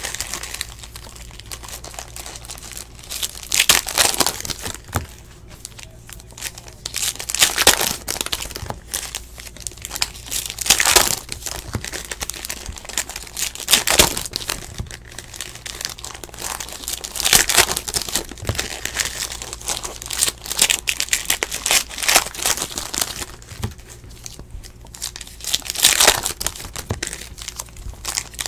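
Foil trading-card pack wrappers crinkling and tearing as they are ripped open by hand, in loud bursts every few seconds with softer rustling between.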